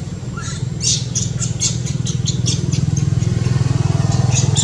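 A motor engine running with a fast, even low pulse, growing louder in the second half, with a rapid series of short high chirps over it.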